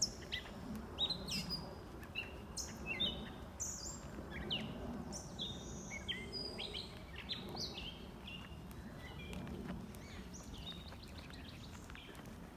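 Several wild birds chirping and singing in woodland: many short, sharp calls and trills, busiest in the first two-thirds and thinning out near the end, over a low, steady background rumble.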